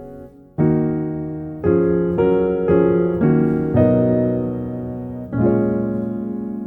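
Background music: slow solo piano, notes and chords struck one after another, each ringing and fading away.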